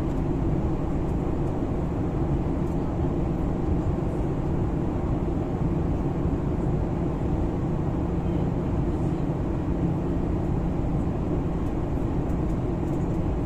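Steady low drone of an airliner's cabin in flight: engine and airflow noise as heard from a window seat, with a constant low hum and no change in level.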